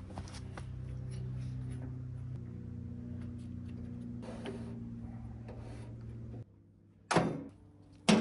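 A steady low hum stops about six and a half seconds in, then two loud thunks about a second apart as the sheet-metal blade-wheel cover of a Wood-Mizer bandsaw mill is swung shut after the blade is refitted.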